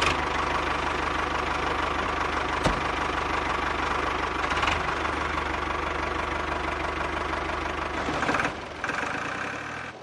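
Tractor engine running steadily, with a single sharp knock about three seconds in. It drops in level near the end.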